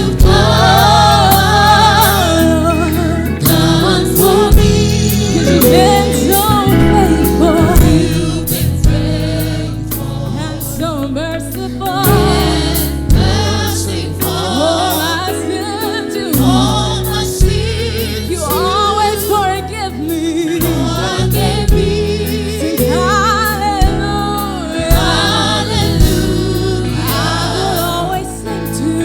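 Gospel choir singing with a band: voices with vibrato over held bass notes and steady drum hits.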